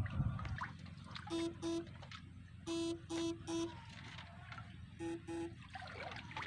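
Electric fishing shocker buzzing in short pulses as it is switched on with its electrodes in the canal water: seven quarter-second pulses in groups of two, three and two. A low thump at the start, with water trickling underneath.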